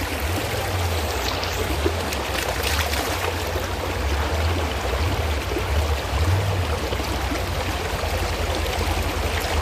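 Mountain stream water rushing steadily over rocks, with a low rumble underneath.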